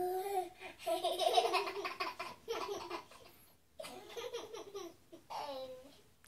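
Young children laughing in high-pitched voices, several spells of giggling with short pauses between.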